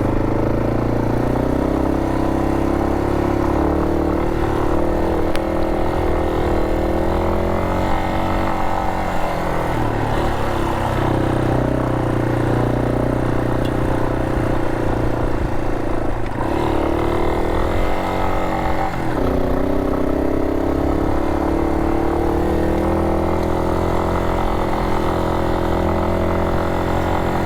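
Yamaha Serow 250's single-cylinder four-stroke engine running while riding, its engine speed dropping sharply and climbing back several times with throttle and gear changes.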